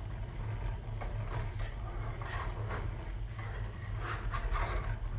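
A black slotted plastic spatula scraping under a pancake in a small nonstick frying pan, a few light scrapes, over a steady low hum.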